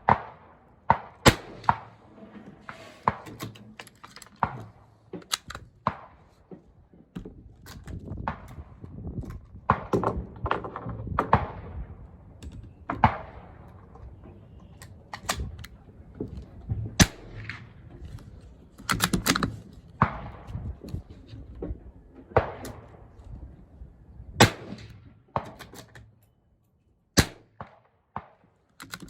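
.22 LR Ruger Mark II pistol firing single shots, a sharp crack every few seconds at an uneven pace. Wind rumbles on the microphone between the shots.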